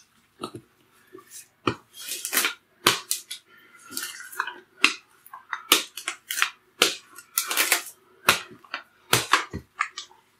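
Rolling pin rolling out a thin sheet of dough on a covered tabletop: an irregular run of sharp clicks and knocks as the pin is pressed, set down and rolled, with a few longer scraping sounds as the dough sheet is moved.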